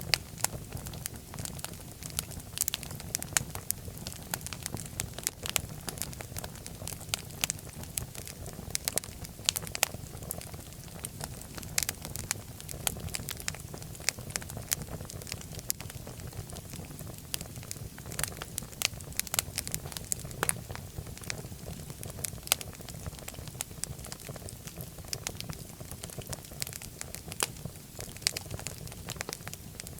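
Wood fire burning in a fireplace, with frequent irregular sharp crackles and pops over a low steady rumble of the flames.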